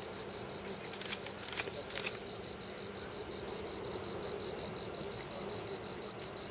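A singing insect chirping in a steady, evenly pulsed high trill, about six or seven pulses a second. A few sharp clicks come between one and two seconds in.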